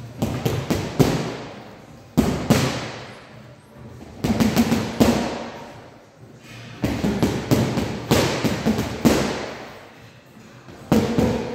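Boxing gloves hitting a hanging heavy punching bag in short flurries of rapid punches, a second or two apart, each flurry ringing on with echo in a large hall.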